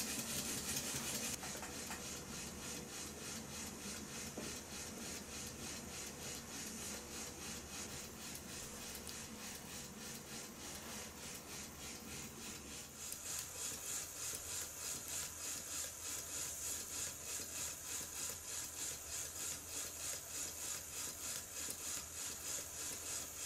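Stuart model beam engine running steadily on compressed air: a regular, rhythmic puffing of exhaust air, even at both ends of the stroke. The puffing gets louder and hissier about 13 seconds in.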